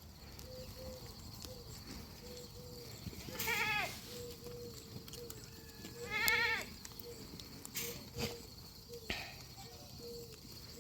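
Goats bleating, two separate calls about three and a half and six seconds in, each about half a second long, with a few sharp clicks later on.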